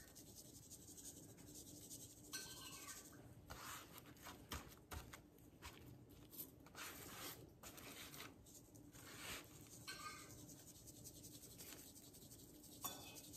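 Faint, irregular scratching and rustling: dry seasoning shaken from a spice shaker onto a venison roast, and a nitrile-gloved hand rubbing it into the meat in a stainless steel pan.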